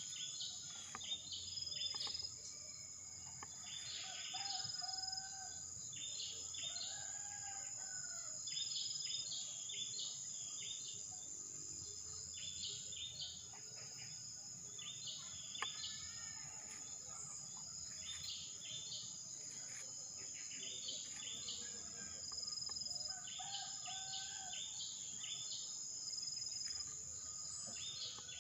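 Steady high-pitched insect drone, with short clusters of bird chirps recurring every second or two and a few lower, curving whistled notes.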